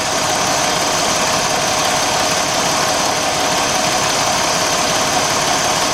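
A 2006 Jeep Grand Cherokee's 3.7-litre V6 idling steadily with the hood open, with a faint constant whine over the engine noise. All ignition coils are plugged back in, and the misfire reads as gone.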